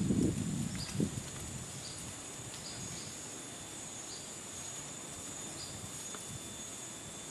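Forest insects, such as cicadas or crickets, keeping up a steady high drone, with short high chirps repeated every second or so. A low rumble fills the first second and ends in a knock.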